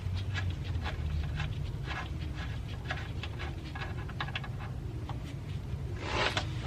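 Scattered light clicks and knocks of hand and tool work on a car's underside, over a steady low hum. A brief hiss comes near the end.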